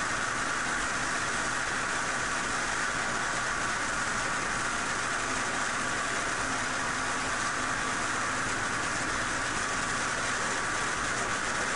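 Home-made Van de Graaff generator running, its small electric motor salvaged from an ice machine driving the belt with a steady whirring noise.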